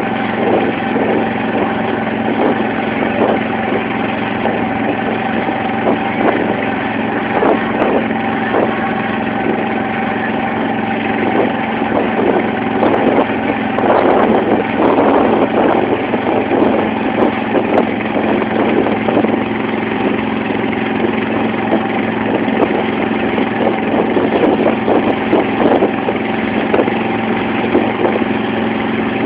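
Engine of a wooden banka motorboat running steadily under way, with water splashing against the hull; the splashing is heaviest around the middle.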